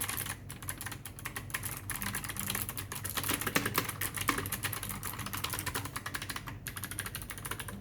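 Fast typing on a DareU EK520 Optical mechanical keyboard with clicky blue switches: a rapid, continuous run of sharp key clicks, with two brief breaks.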